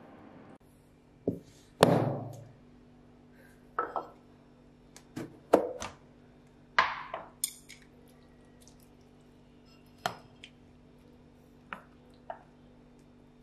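A low steady hum cuts off just after the start. Then comes a series of separate sharp knocks and clicks, about a dozen, from a plastic food container and its lid being handled and chopsticks tapping against it and a ceramic plate as kimchi is served. The loudest knock comes about two seconds in and rings briefly.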